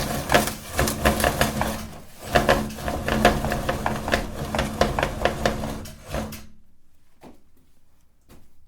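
Meat grinder motor running as it crunches hard candy, with many sharp cracks over a steady hum. The motor cuts off suddenly about six and a half seconds in, leaving a few faint clicks.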